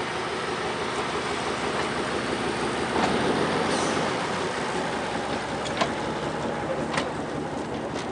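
Narrow-gauge diesel train's passenger coaches rolling past close by, a steady rumble of wheels on rails that swells about three seconds in, with two sharp clicks from the running gear near the end.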